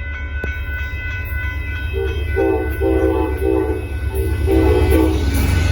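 Amtrak Texas Eagle locomotive approaching with a steady low diesel rumble. About two seconds in it sounds its air horn in a run of short and long blasts that lasts until near the end. The train noise grows louder as it draws near.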